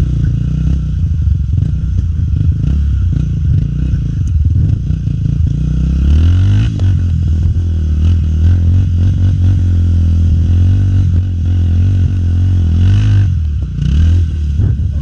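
Honda XR 250 Tornado trail bike's single-cylinder four-stroke engine running while riding. It revs up about six seconds in, holds a steady pitch, and eases off briefly near the end before picking up again.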